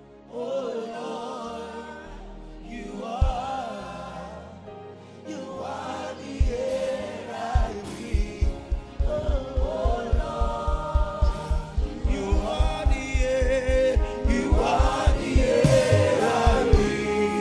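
Gospel worship song, with voices singing over the music. A steady beat comes in about six seconds in, and the music builds louder toward the end.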